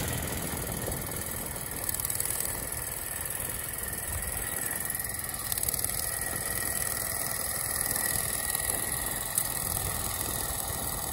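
Small single-cylinder engine on a garden tractor running steadily under load as the tractor pulls a tine cultivator through the soil.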